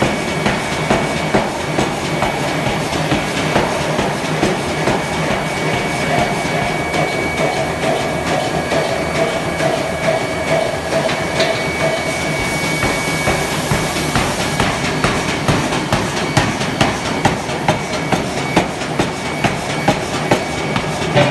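Forging-shop din: an air (pneumatic) forging hammer striking in a steady rhythm, about one and a half blows a second, over continuous machine noise. A thin, steady high whine runs through the first half or so.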